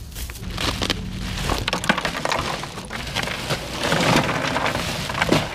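Bag of ice cubes rustling and the cubes crunching and clattering as the bagged ice is handled and stowed in a compartment with loose ice. The sound is a continuous crackle full of small clicks.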